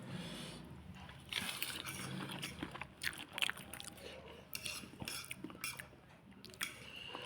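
A spoon clinking and tapping against a bowl while noodles are eaten, heard as scattered short clicks.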